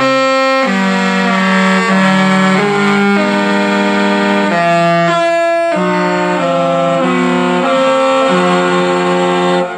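A phone ringtone playing: a melody of held chords, several notes sounding together and changing every half second to a second. It cuts off suddenly near the end.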